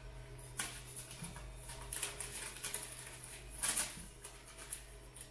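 Faint, irregular rustling and scraping from a sheet of paper being handled and the 3D printer's print-head carriage being pushed by hand into position, over a low steady hum. One louder rustle comes about two thirds of the way through.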